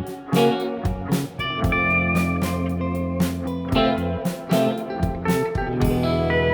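Background rock music: electric guitar playing a melody over a steady bass line and regular drum hits.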